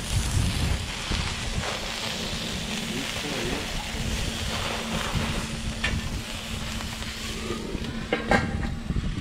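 Sausages sizzling on a small portable kettle grill, a steady hiss, with wind buffeting the microphone. Near the end the grill's stainless lid clinks as it is handled.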